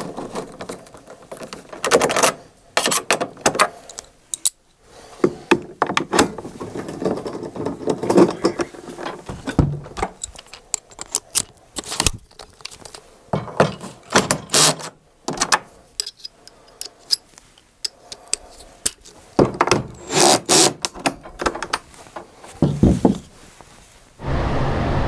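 Irregular clicks, knocks and clatter of hand tools and bolts being handled and set down while bolts are fitted to a dehumidifier's plastic housing.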